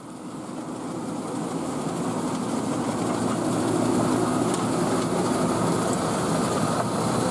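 Heavy farm machinery running: a steady engine and mechanical rumble that grows louder over the first three seconds or so, then holds steady.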